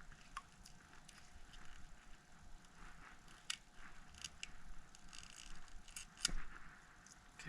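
Faint scattered clicks and light scratching of small hand tools on an opened iPhone 6s while the battery's adhesive pull tab is worked loose, with one sharper click about six seconds in.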